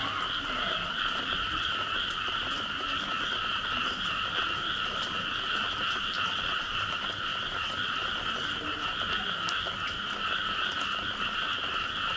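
Dense chorus of frogs calling after rain, the calls blending into a steady, unbroken din, with a few faint scattered ticks.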